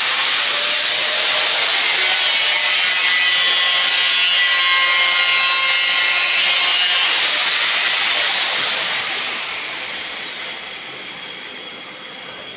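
Handheld electric angle grinder running at full speed as it cuts sheet material, then switched off about eight seconds in, its whine falling as the disc spins down.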